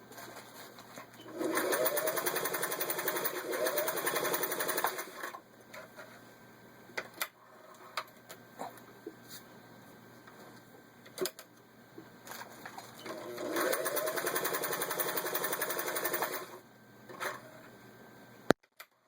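Singer 503A sewing machine stitching through four layers of vinyl upholstery in two runs, one of about four seconds and one of about three seconds. Scattered clicks fall between the runs, and a sharp click comes near the end.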